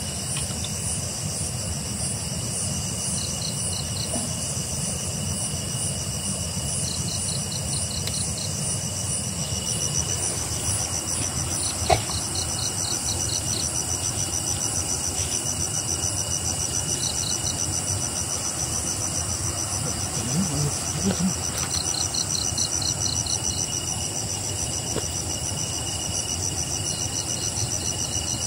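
Night insects, crickets among them, chirping and trilling steadily in several high-pitched layers, with pulsed trills coming and going, over a low steady rush. A single sharp click about twelve seconds in.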